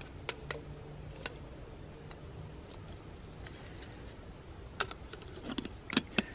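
Light metallic clicks and taps from the parts of an aluminium coffee percolator being fitted together: spreader plate onto the stem, then the lid. There are a few scattered clicks, with louder ones close together near the end as the lid goes on.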